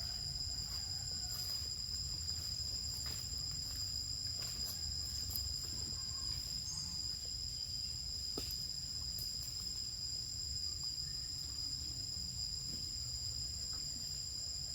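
Insects trilling steadily at two continuous high pitches, over a low background rumble with a few faint clicks.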